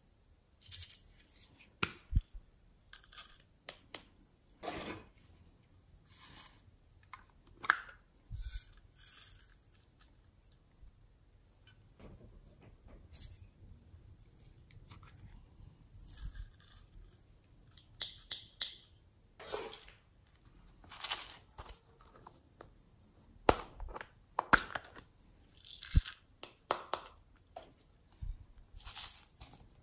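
Small plastic toy containers being handled, their lids opened and glitter and sequins shaken out into a glass dish: a series of irregular short clicks and rustles with quiet gaps between.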